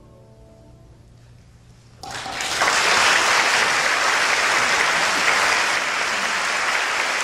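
The last chord of a choir with piano fades away, and after a short hush an audience breaks into applause about two seconds in, which carries on steadily.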